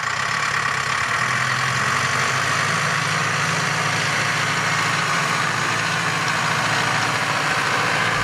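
Zetor Proxima 70 tractor's four-cylinder diesel engine running steadily under load while pulling a stubble cultivator through the soil.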